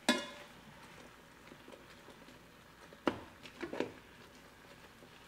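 A black utensil knocking and scraping in the Ninja Foodi's inner pot while breaking up raw ground turkey and chopped vegetables: two sharp knocks about three seconds apart, with soft squishing and a few lighter taps in between.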